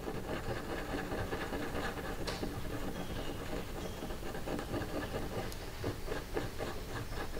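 A marker scribbling on paper in quick back-and-forth strokes, colouring in a small circle on a printed tracker sheet.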